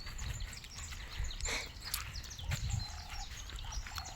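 Birds chirping in many quick, high calls, joined about halfway by a repeated lower call, over a low rumble.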